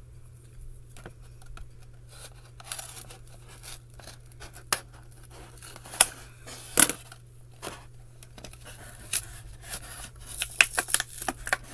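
Small scissors snipping through the clear plastic packaging of a toy egg, a few sharp snips standing out about halfway through. Near the end the plastic wrapper crinkles and rustles as it is pulled off by hand.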